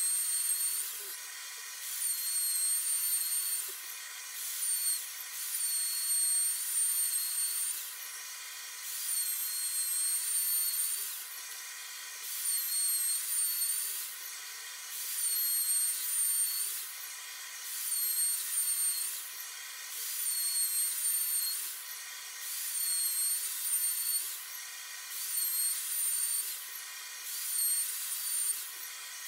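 Plunge router running at high speed while flattening a cherry wood slab on a router sled. Its high whine dips and recovers in a repeating cycle about every two and a half seconds as the bit is pushed through each pass.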